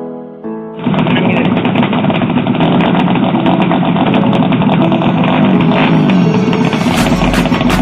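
A few piano notes, then from about a second in, racing motorcycle engines revving and running loudly, with pitch rising and falling.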